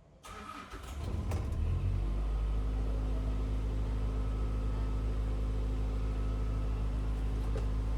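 The bus's diesel AC engine cranking and catching about a second in, then settling into a steady idle. It starts and keeps running now that its EP fault has been cleared by repairing the condenser fan motors.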